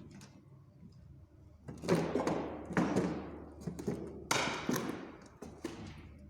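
Heavy knocks on the metal of a truck body, four loud ones within about three seconds starting a couple of seconds in, each followed by a ringing decay.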